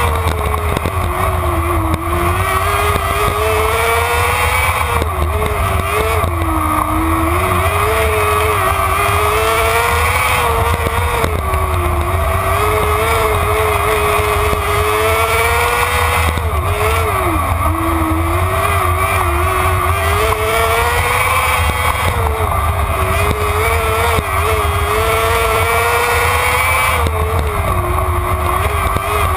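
Winged sprint car's engine at racing speed, heard from on board. The engine note dips and climbs back again about every five seconds, lap after lap, as the throttle comes off and on through the turns.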